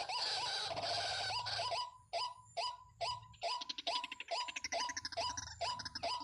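Waterhen (jal murgi) calling: a dense run of loud, harsh calls for about two seconds, then a steady series of short hooked notes repeated two to three times a second.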